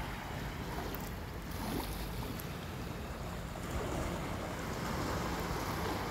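Small sea waves washing against a rocky shoreline, with steady wind noise on the microphone.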